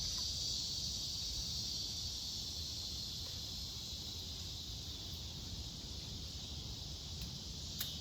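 Steady high-pitched drone of an insect chorus, over a low uneven rumble, with a short click near the end.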